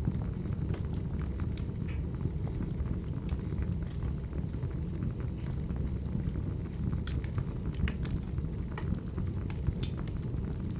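Burning firewood: a steady low rumble of flames with scattered sharp crackles and pops.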